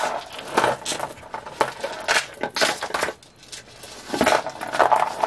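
Beads of a costume-jewellery necklace being handled, clicking and clinking against each other in an irregular run of small, hard knocks.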